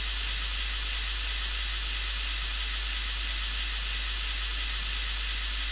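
Steady hiss of a maximum length sequence (MLS) test signal, 16,383 points long, played through a loudspeaker: it sounds like white noise, strongest in the upper range, with a low hum underneath.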